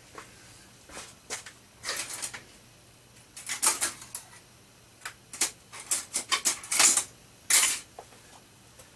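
Scattered clicks, taps and short scrapes of small tools and metal being handled at the lathe, with a quick run of clicks about two-thirds through and a longer scrape near the end.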